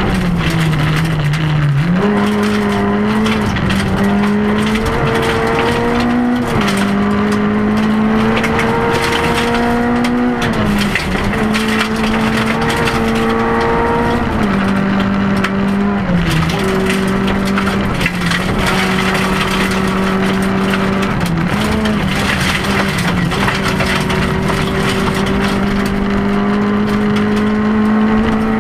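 Rally car's engine heard from inside the cabin, held at high revs at stage speed on gravel, its pitch dropping briefly and jumping back a few times at gear changes and lifts. Gravel patters against the underside.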